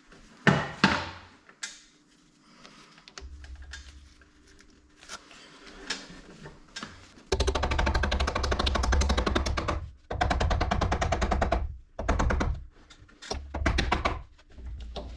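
Metal drill press gearbox parts being handled and fitted onto a shaft. A few sharp knocks come in the first second. Several bursts of rapid metallic rattling follow in the second half.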